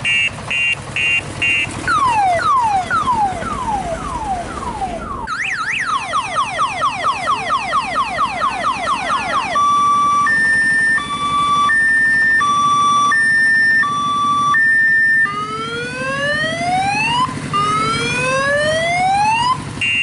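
Electronic multi-tone siren of the car-alarm kind cycling through its patterns: short beeps, then falling sweeps about three a second from about two seconds in, faster falling chirps from about five seconds in, a two-note hi-lo alternation from about ten seconds in, and slow rising whoops from about fifteen seconds in. A steady low hum runs underneath.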